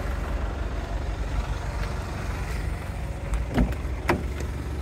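Jaguar XE driver's door unlatched and swung open, two short clicks about half a second apart around three and a half seconds in, over a steady low rumble.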